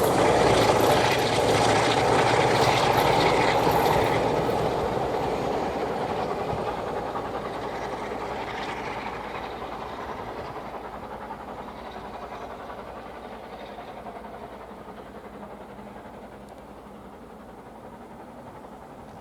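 A steam-hauled passenger train's coaches rolling past, wheels clattering on the rails, loud for the first few seconds and then fading steadily as the train draws away.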